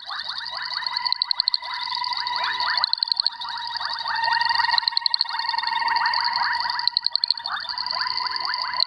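Boettger's caco frogs calling to attract females: a continuous chorus of fast pulsed calls, broken about four times by short bursts of rapid, sharp clicks.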